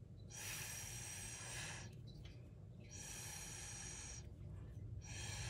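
Someone blowing through a drinking straw onto wet poured paint: three long, breathy hisses of air, each over a second, to push the paint around and give it movement.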